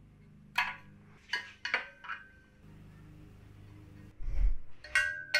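Metal tools clinking against an aluminium tube and a steel weld table: a handful of sharp clinks, each with a short ring, and a dull knock about four seconds in.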